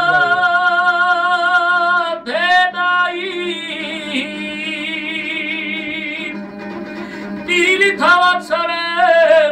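A man singing a Georgian folk poem in long, high held notes with a wavering vibrato, over a steady low drone. Near the end a new phrase begins with upward slides in pitch.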